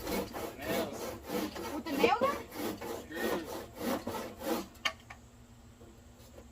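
Handsaw cutting through a wooden board with rapid back-and-forth strokes, about three a second, stopping about four and a half seconds in.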